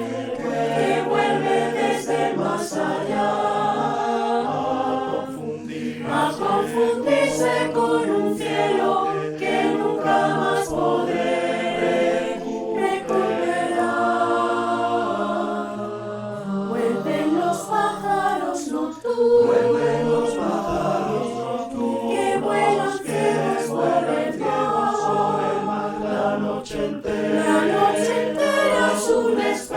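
Mixed choir in five parts (sopranos, altos, tenors, baritones, basses) singing a slow, legato song, with several sustained voices moving together from note to note.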